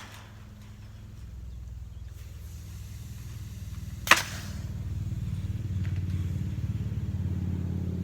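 A low engine hum that grows steadily louder over several seconds, with one sharp click about four seconds in.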